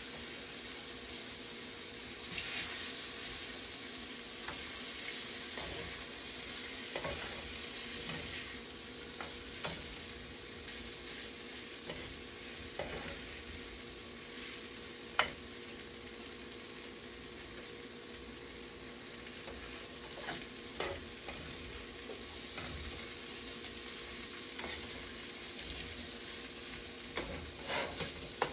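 Ramen noodles and mixed vegetables sizzling in a stainless-steel skillet while being stirred, with a steady frying hiss and scattered light clicks of the utensil against the pan. One sharper click comes about halfway through.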